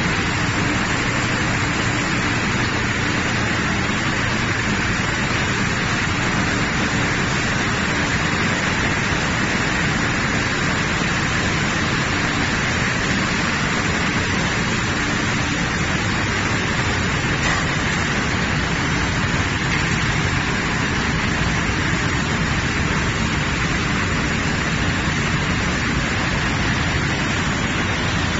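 Steady, even noise of a puffed corn snack processing line running, its conveyors, motors and fans blending into one unchanging din.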